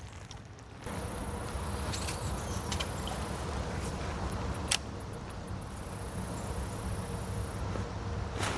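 High-pitched insect buzzing that comes on about a second in, stops partway, and returns briefly near the end, over a low steady rumble, with one sharp click near the middle.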